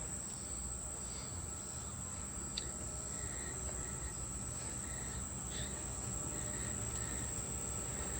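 Outdoor heat pump unit running with a steady low hum, under a continuous high-pitched insect drone, with a few faint chirps and two light clicks.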